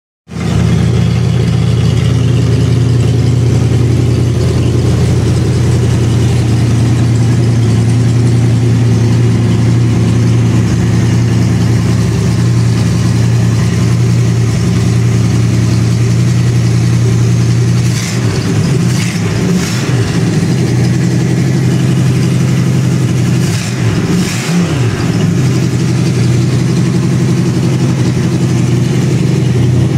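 Oldsmobile 350 V8 with a changed cam running steadily on an engine run stand during break-in, with the pitch wavering briefly a couple of times past the middle.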